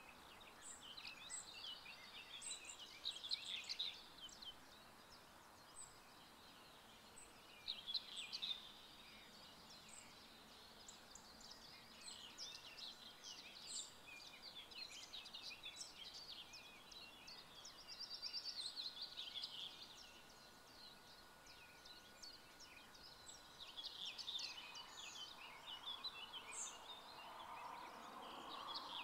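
Several songbirds singing faintly, overlapping quick runs of high chirps and trills that come and go, over a soft steady background hiss.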